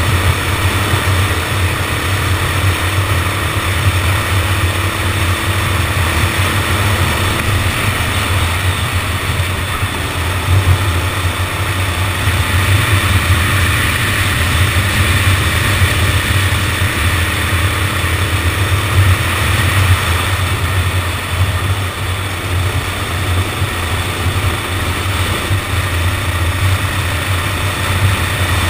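Go-kart engine running and revving as the kart laps, recorded onboard, with a heavy low rumble of wind and vibration on the microphone.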